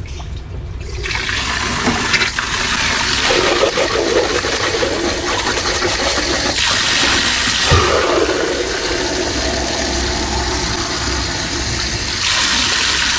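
Water running steadily and splashing into a container, starting about a second in and shifting in tone a few times as the flow changes.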